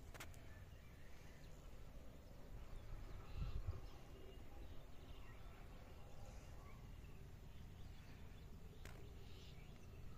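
Faint open-air ambience: a low steady rumble with one brief louder bump about three and a half seconds in, and faint scattered bird chirps.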